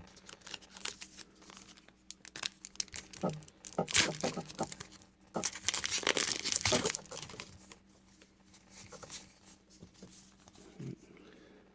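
Foil wrapper of a trading card pack being torn open and crinkled, in a run of sharp crackly rustles that is loudest in the middle, with quieter handling rustles before and after.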